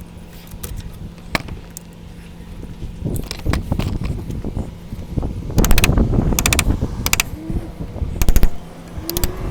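A chisel notching a wooden fence trim piece: scattered sharp knocks, then clusters of rapid hard strikes on the wood from about the middle on. Two brief squeaks sound near the end.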